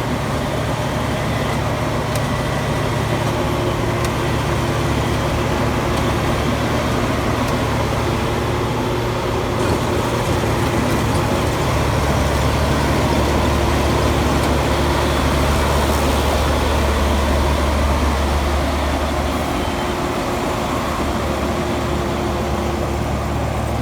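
Combine harvester engine running steadily under load. Its low drone grows deeper and a little louder from about twelve to nineteen seconds in, then eases back.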